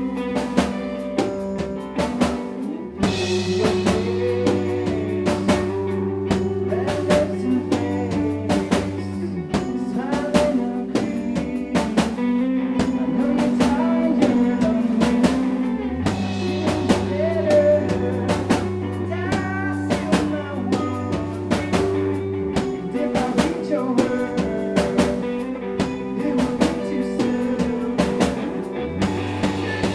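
Live band playing a song: a drum kit keeps a steady beat under bass and guitar, and the bass line shifts every few seconds in a repeating pattern.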